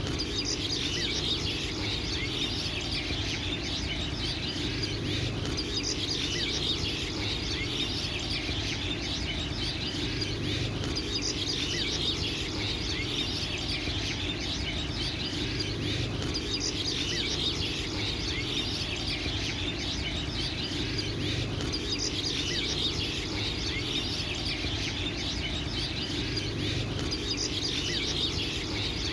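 A dense, continuous chorus of small birds chirping, over a low hum that swells and fades about every five seconds.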